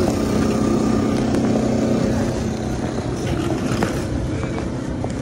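A motor running nearby: a steady low hum over rumbling noise, easing off a little after about two and a half seconds.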